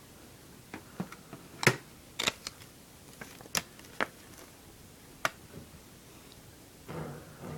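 Sharp plastic clicks and taps from a CD jewel case being handled and set down on a cardboard box, about eight of them with the loudest about a second and a half in, then a short paper rustle near the end as the obi strip is handled.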